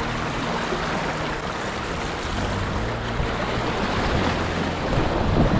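River rapids rushing and splashing around a kayak as it is paddled downstream, with paddle strokes in the water and wind buffeting the microphone. The water noise swells a little near the end.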